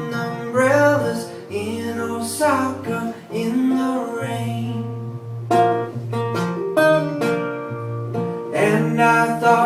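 Live acoustic guitar playing a song, with a singing voice over it in places.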